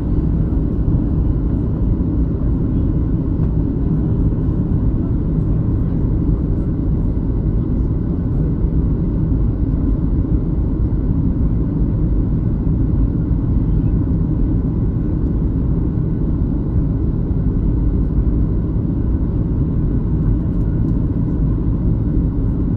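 Steady low rumble of a Boeing 737-700's jet engines and airflow heard inside the passenger cabin, with flaps extended on the approach.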